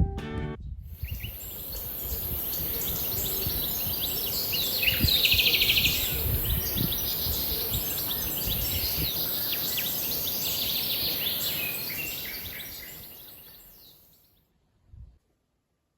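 Many small birds chirping and calling over a steady outdoor hiss, a nature ambience that fades out near the end.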